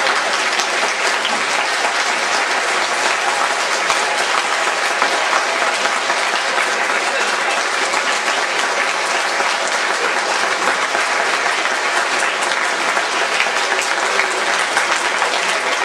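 Sustained applause from a large crowd, steady and even throughout.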